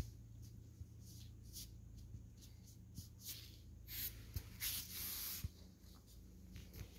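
American Akita puppy sniffing at the mat: a run of short, faint, breathy sniffs that come closer together and grow stronger towards the middle, with one longer hiss about five seconds in.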